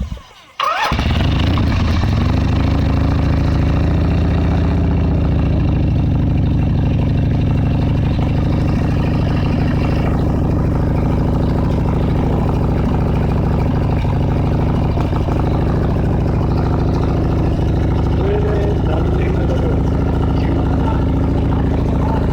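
Harley-Davidson V-twin motorcycle engine starting about a second in, then idling steadily.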